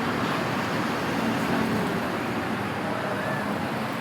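Busy city street ambience: a steady wash of traffic noise with faint voices of passers-by in the mix.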